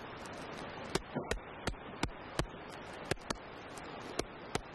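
Irregular sharp clicks and knocks, about eight of them, over a steady hiss: handling noise on a helmet-mounted action camera as the helmet is moved about.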